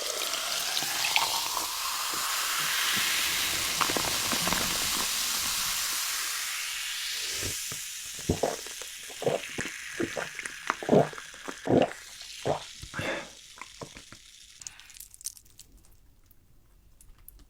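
Food sizzling as it fries, a steady hiss that fades after about seven seconds, followed by a series of a dozen or so short, sharp sounds before it goes quiet near the end.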